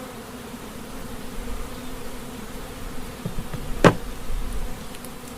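Honeybees buzzing around an open hive in a steady hum, with one sharp knock a little before four seconds in.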